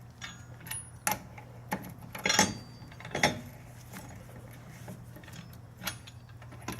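A tire iron fitted on wheel lug nuts, turning them to snug them down, with a handful of sharp metallic clicks and scrapes spread through the first half and once more near the end.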